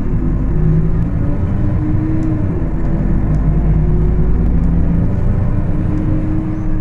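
Diesel engine of a Mercedes-Benz O500-UA articulated city bus running under way, heard from inside the bus: a loud, continuous drone whose pitch shifts a little as engine speed changes. The bus was making what the uploader calls a strange sound.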